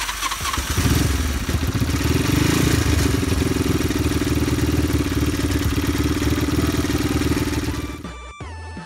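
Air-cooled single-cylinder engine of a small Chinese motorcycle running, revving a little in the first few seconds and then settling to a steady idle on fuel through its newly fitted petcock. The engine sound cuts off about eight seconds in, and electronic music follows.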